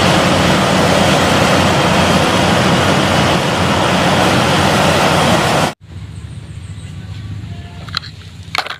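Heavy engine running loudly with a low rumble, cut off suddenly about six seconds in; a quieter, steady engine-like hum follows.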